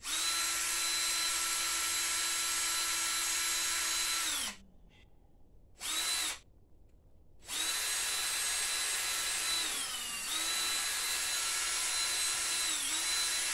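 Cordless drill spinning a brush to clean corrosion off the ATV battery posts: it runs steadily for about four seconds and winds down, gives a short burst, then runs again for about seven seconds, its pitch sagging briefly twice.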